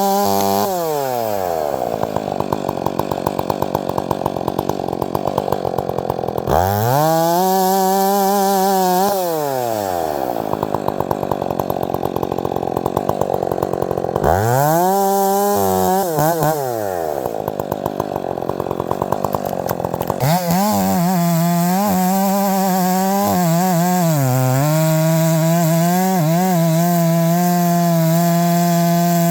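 Gas chainsaw engine revved up and dropped back to idle twice, then held at high revs through the last third, its pitch wavering and dipping as the chain takes load in wood.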